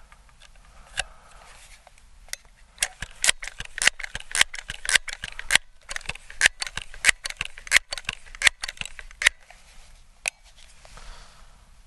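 Crosman 1322 multi-pump pneumatic pistol being pumped by hand: a quick run of sharp clicks and clacks as the pump lever is swung open and shut again and again for about six seconds, charging the air for a 10-pump shot. One more click follows about a second later.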